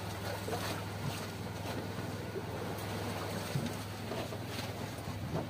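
Steady engine drone aboard a small fishing boat, with wind and water noise and a few faint knocks.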